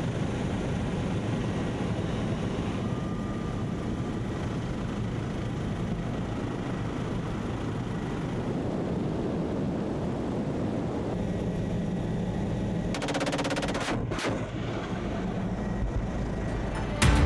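Bell OH-58 Kiowa scout helicopter in flight, its rotor and engine running, with machine-gun fire from its side-mounted gun as it engages ground targets. The sound changes abruptly about 13 to 14 seconds in.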